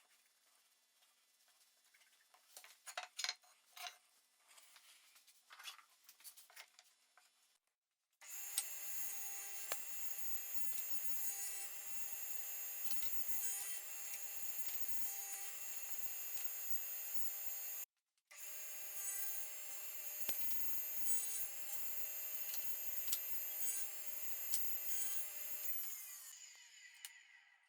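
A few light knocks from handling, then an electric power tool runs steadily while working wood, with a steady whine over a rasping hiss. Near the end its pitch falls and the sound fades as the tool spins down.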